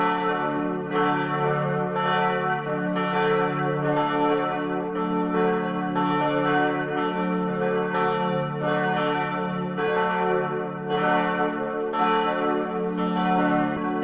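Church bells ringing, struck over and over about once a second, each stroke ringing on into the next.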